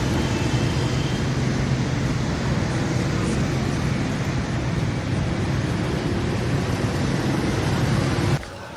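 A steady engine running, with a heavy low hum under a wash of noise, cutting off abruptly near the end.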